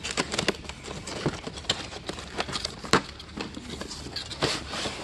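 Cardboard box and wrench-set packaging being handled and opened: irregular clicks and taps, the sharpest about three seconds in.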